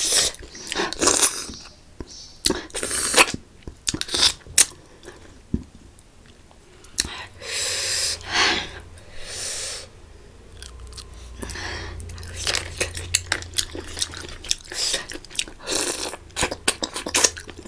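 Close-miked eating: chewing with wet mouth clicks and smacks through spicy food, with two longer hissing sounds a little before halfway.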